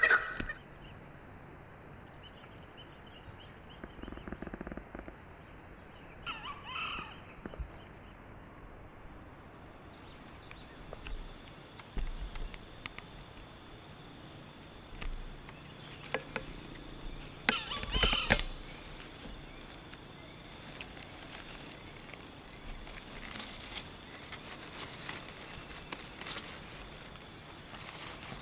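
Quiet woodland ambience: a steady high insect drone, with a few short natural sounds scattered through it. The loudest of these comes about eighteen seconds in, and others may be brief bird calls.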